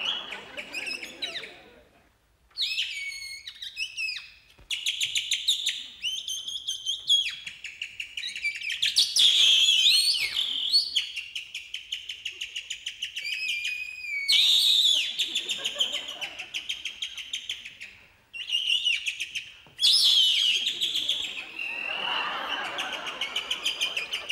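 A clown imitating birdsong with his own mouth: chirping, warbling trills and whistled glides up and down in pitch, in phrases broken by short pauses.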